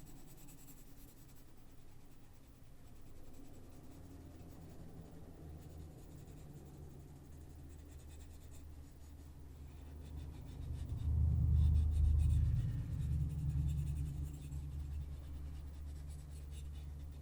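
Prismacolor colored pencil shading on paper with soft, repeated scratchy strokes. A low rumble swells about ten seconds in and then eases.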